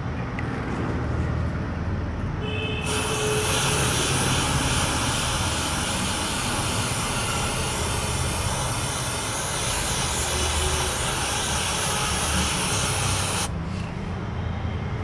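Aerosol cleaner spray hissing steadily onto a motorcycle air filter for about ten seconds, starting about three seconds in and cutting off sharply near the end, to wash out dirt and oil.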